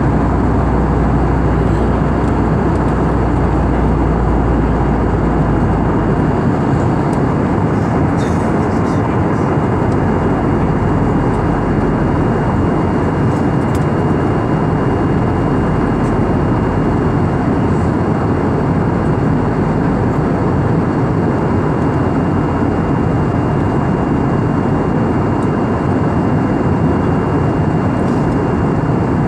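Steady aircraft cabin noise: a loud, even roar of engines and rushing air with a faint constant high whine.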